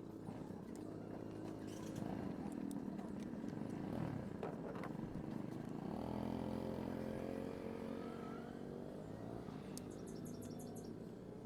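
Small scooter engine running steadily, its pitch shifting about six seconds in, with a few quick ticks near the end.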